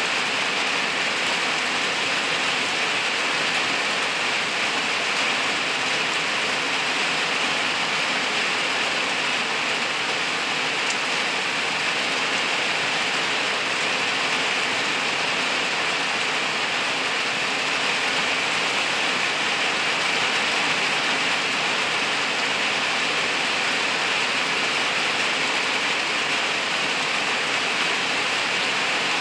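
Steady rain falling on leaves and woodland ground, an even hiss that holds the same level throughout.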